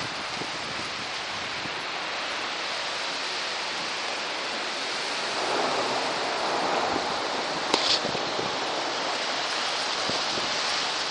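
Hailstorm: a dense, steady hiss of hailstones and rain pelting roofs and the street, swelling a little about halfway through, with one sharp knock about two-thirds of the way in.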